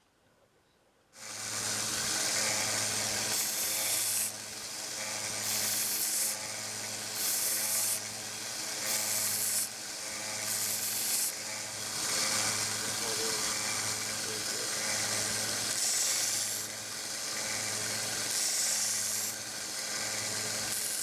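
A 1x30 belt sander with a 120 grit belt grinding steel pliers. It starts about a second in, a steady motor hum under a harsh grinding that swells and eases about every one and a half seconds.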